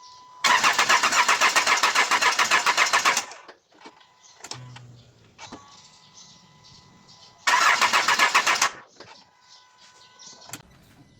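Nissan Patrol Y61's ZD30 diesel turning over on its starter twice, a rhythmic crank of nearly three seconds and a shorter one of about a second, each stopping without the engine catching. This is the hard start that is put down to a failing crankshaft position sensor (code P0336).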